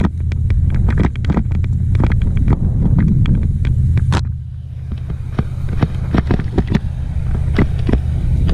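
Mountain bike descending a rocky, muddy downhill trail: wind rumbles steadily on the microphone while the bike clatters and knocks over the rocks in frequent sharp hits, easing briefly midway.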